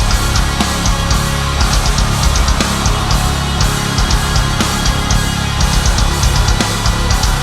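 Loud heavy-metal outro music with distorted guitar and a driving drum kit.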